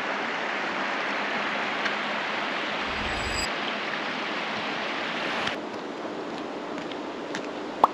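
Rushing water of a stony mountain stream, a steady hiss that drops to a quieter wash about five and a half seconds in, with a single sharp click near the end.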